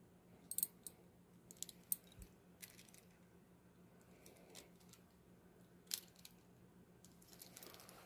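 Metal handcuff swivel and connecting rings clicking and clinking as they are turned in the hands: several sharp clicks over the first three seconds and one more about six seconds in, then a soft rustle near the end.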